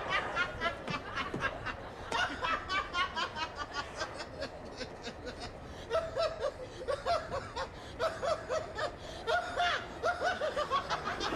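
Laughter in several bouts of quick, pulsing chuckles with short pauses between them.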